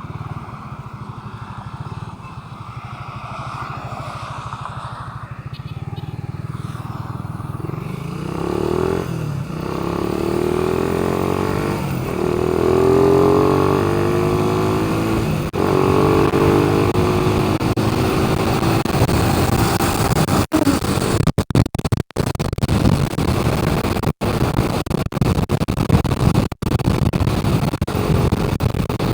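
A motor vehicle engine running, growing gradually louder, its pitch shifting up and down through the middle. Near the end the sound briefly cuts out several times.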